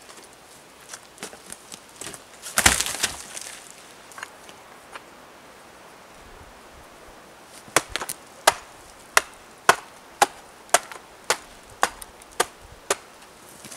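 Hatchet chopping into a birch log: a regular run of about ten sharp strikes, roughly two a second, through the second half. Earlier, about three seconds in, comes a single louder crashing thump.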